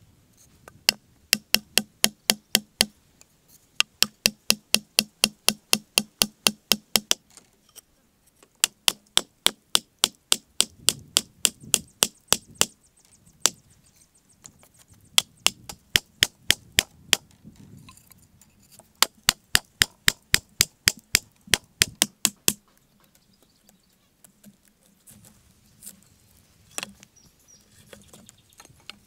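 Wooden mallet striking thin wooden stakes, driving them into the ground for a stake fence: sharp wood-on-wood knocks in quick runs of about four a second, with short pauses between runs and only a few scattered knocks near the end.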